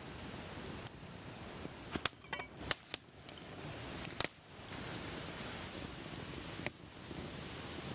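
Metal utensils clinking and tapping during food preparation: a quick cluster of sharp, ringing clinks about two seconds in, then single clicks now and then, over a steady background hiss.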